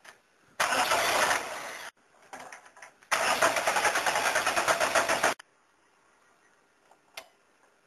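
Starter motor cranking the freshly rebuilt Peugeot 306 XUD9 diesel engine in two bursts, a short one and then a pulsing one of about two seconds, each stopping abruptly without the engine running on: first start attempts after the fuel system has been bled.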